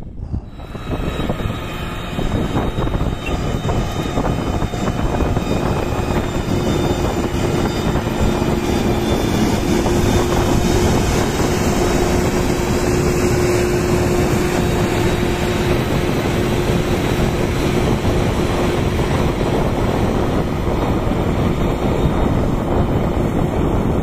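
Diesel engine of an XCMG 1803BR motor grader running steadily, a continuous loud rumble with a faint held tone through the middle.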